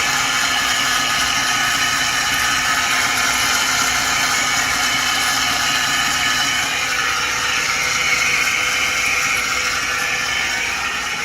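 Engine bay of a 2011 Ford F-150's 3.7-litre V6 running with a high-pitched whine over the engine note; the whine grows stronger about eight seconds in, then eases near the end. The owner rules out the alternator; the whine began after driving through deep water.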